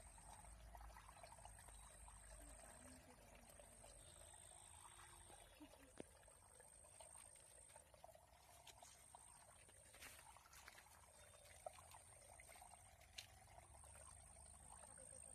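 Faint trickling water, very quiet, with a thin high tone that stops and starts and a few small clicks.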